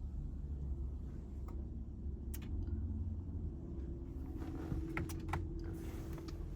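Rapid clicking from a 2014 Infiniti QX80 that fails to start when the start button is pressed, with a few sharper clicks and a faint steady whine joining about four seconds in. This is a random no-start fault that has persisted despite a new battery and alternator.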